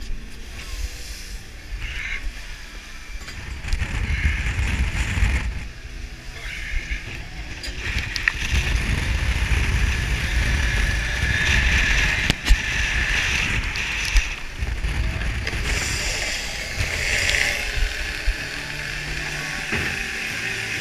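Wind buffeting the microphone and rough seas washing against a crab boat's side, with the boat running underneath. Near the end the hydraulic crab block is turning, adding a steadier hum.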